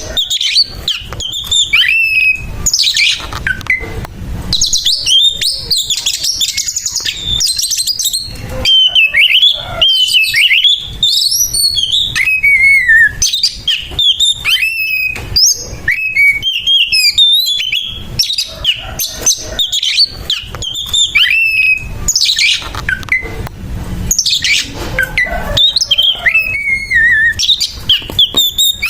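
Oriental magpie-robin (kacer) singing a rough, aggressive fighting song: a continuous rapid stream of loud chirps, trills and falling whistled glides.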